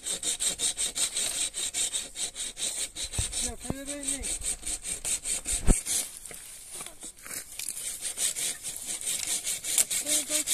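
Hand saw cutting firewood in quick, even back-and-forth strokes, about three a second, easing off briefly past the middle and then picking up again. One sharp knock about halfway through is the loudest moment.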